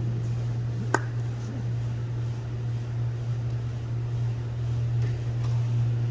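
Steady low mechanical hum of an ice rink's machinery, with one sharp click about a second in.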